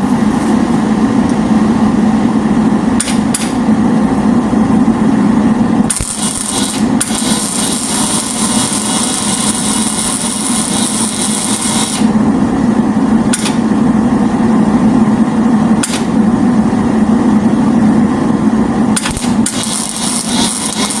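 Loud, continuous metalworking tool noise with a steady low hum throughout. A stretch of hiss switches on about six seconds in and cuts off about six seconds later, and comes back near the end.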